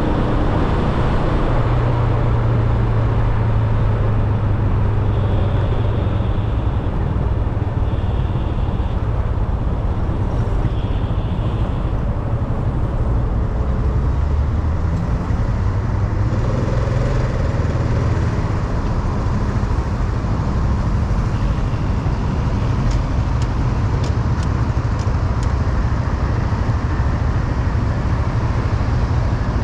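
Small motorcycle's engine running under way in traffic, a steady low hum, with the rush of wind over the microphone.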